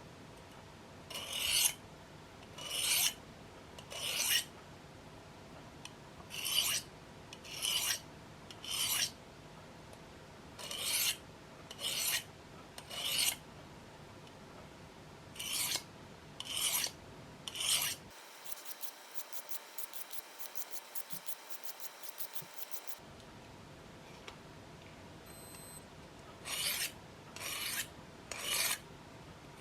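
A knife blade scraped along a folding pocket diamond sharpening plate, one rasping stroke about every second, mostly in sets of three. Midway the strokes stop for about five seconds of faint, rapid ticking.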